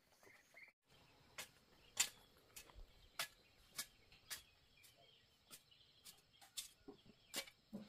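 A garden hoe chopping into tilled soil, one sharp strike about every half second in a steady working rhythm.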